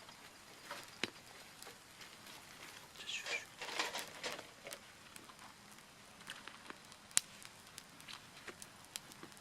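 Dry twigs and firewood snapping and crackling in scattered clicks, with a denser rustling stretch about three to four and a half seconds in and one sharp snap about seven seconds in.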